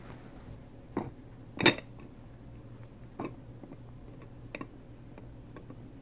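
A glass bowl and a ceramic plate knocking and clinking together four times as they are handled with a pot holder, the loudest knock under two seconds in. A low steady hum runs underneath.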